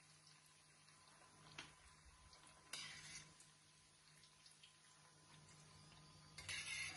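Mostly quiet with a faint steady hum, broken by two short rustles, about three seconds in and near the end, as fried breaded zucchini sticks are set down with tongs on paper towel.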